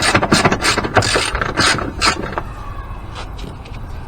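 Socket ratchet wrench clicking rapidly as a bolt is undone; the clicking stops about two and a half seconds in.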